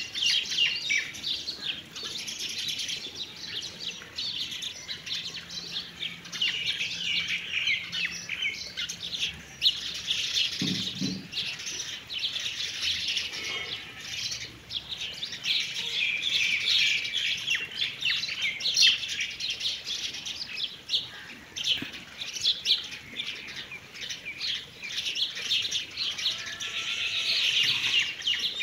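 Many small birds chirping continuously in a dense, busy chorus of high chirps.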